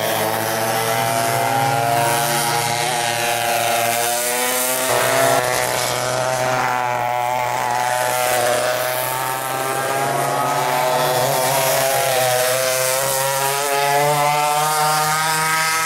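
Engines of vintage racing go-karts running hard on track, several engine notes rising and falling in pitch as the karts accelerate and ease off through the corners. The sound changes abruptly about five seconds in.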